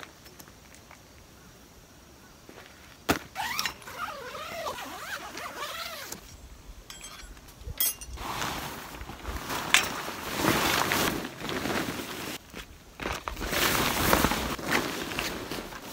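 Rustling and clattering as gear is handled, coming in noisy bursts with clicks through the second half. A short wavering squeak-like sound comes a few seconds in.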